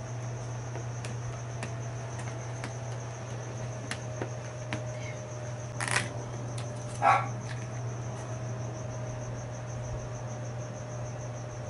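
A steady high-pitched trill, pulsing several times a second, runs over a low steady hum. Two short handling noises stand out about six and seven seconds in, the second the louder.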